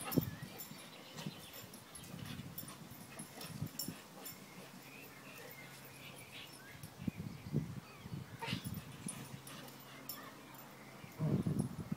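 A Doberman and a Staffordshire bull terrier play-fighting on a lawn: faint, scattered dog noises from their rough play, with a louder burst of sound starting near the end.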